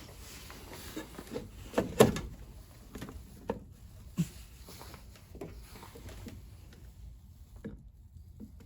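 Scattered knocks and clicks of objects being handled, the loudest a sharp knock about two seconds in.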